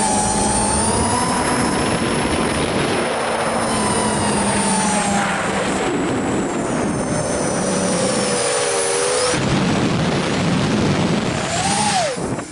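FPV drone's electric motors and propellers, heard from its own onboard camera: a loud, steady whirring whine whose pitch glides up and down with the throttle. About twelve seconds in it briefly dips and swoops down and back up as the drone rolls.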